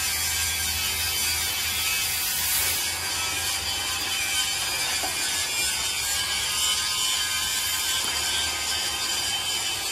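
Steady, dense mechanical rattling without letup, over a low hum.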